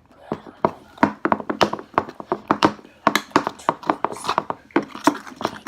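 Spoon stirring thick, sticky slime, knocking and tapping against its container in an irregular run of several sharp taps a second.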